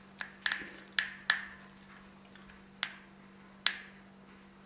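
Small metal watchmaker screwdriver clicking in the screw head in the back of a plastic action figure as the screw is worked out: about six sharp, irregular clicks, the loudest bunched in the first second and a half, over a faint steady hum.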